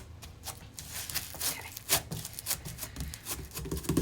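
Crunchy slime being squished and worked by hand, its mixed-in crunchies crackling in an irregular run of sharp clicks and pops.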